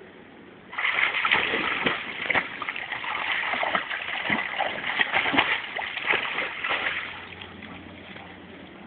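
Labrador splashing in river water as it tugs and hangs on a rope. A dense run of splashes begins just under a second in and fades out a couple of seconds before the end.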